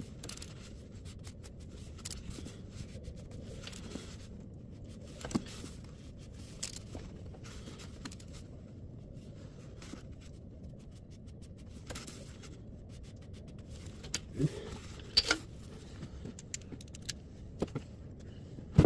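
Scattered short metallic clicks and scrapes from a hand tool working on a generator's cable terminal, over a steady low background hum.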